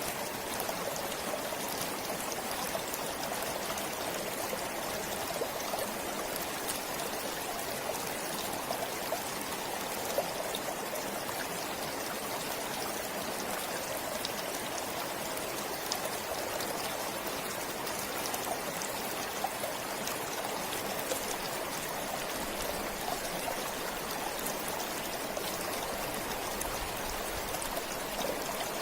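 Forest stream flowing steadily, water babbling and trickling over stones with small splashes.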